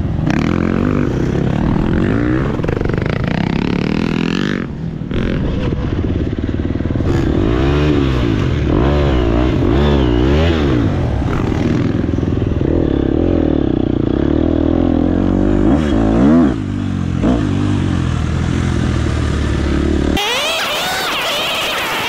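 Dirt bike engine revving up and down repeatedly as it is ridden around a motocross track. Near the end it cuts abruptly to a brighter, noisier engine sound that climbs in pitch.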